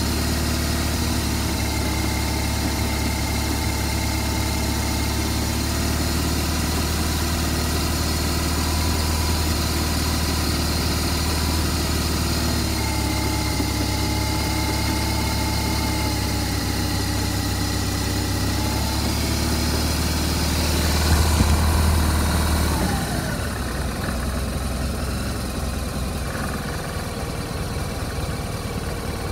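BMW R1200RT's boxer twin engine running steadily in second gear. About 21 seconds in it swells briefly, then the note drops and runs a little quieter.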